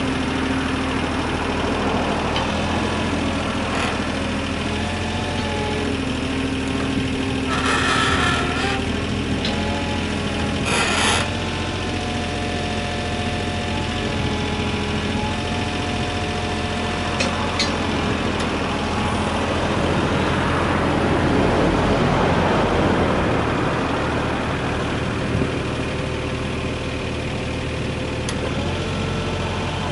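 Yanmar VIO20-1 mini excavator's diesel engine running steadily, with whines that shift in pitch as the hydraulics work. There are two short hisses about 8 and 11 seconds in, and a louder stretch of working noise around 20 seconds in.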